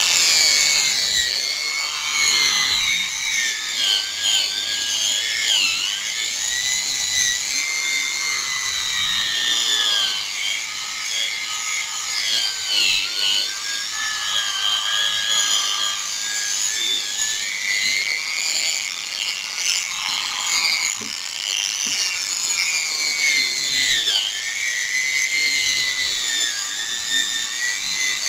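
Small power sander running a sanding disc against a wet plastic headlight lens. It makes a high whine that dips in pitch every few seconds as it is pressed onto the lens and then recovers. The sound is the wet-sanding stage that cuts away the yellowed, scratched surface of the lens.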